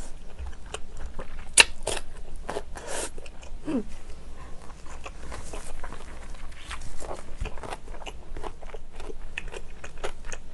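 Crisp crunching and wet chewing of stuffed cucumber kimchi, picked up close by an eating-sound microphone, with irregular sharp crunches and one loud crack about a second and a half in.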